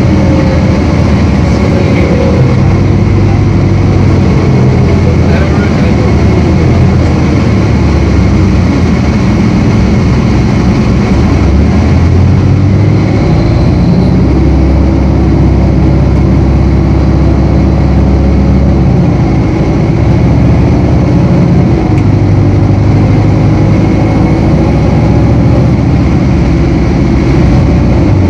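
Diesel engine of a 1999 New Flyer D40LF transit bus running steadily and loudly, its note shifting up and down in pitch several times.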